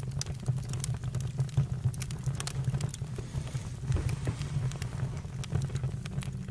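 Campfire crackling: irregular sharp pops and snaps over a steady low rumble from the fire.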